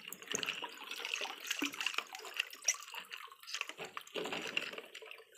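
Shallow water sloshing and lapping in a basin as hands and plastic toy trucks move through it, with small irregular splashes and clicks.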